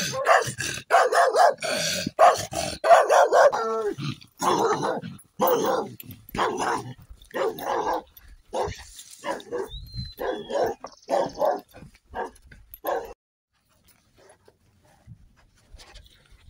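Dog barking repeatedly, about two barks a second, then stopping about thirteen seconds in.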